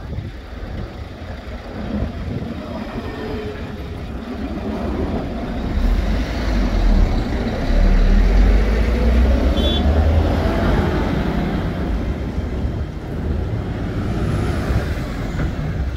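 Alstom Citadis X05 low-floor electric tram approaching and passing close by, its rolling rumble and rush of noise building to a peak about six to ten seconds in as the cars go past. It then eases as the tram slows into the stop.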